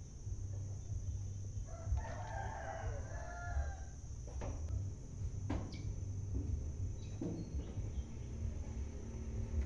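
A rooster crowing once in the background, starting about two seconds in and lasting about two seconds. After it come a few sharp clicks of metal pump parts being handled, over a steady low hum.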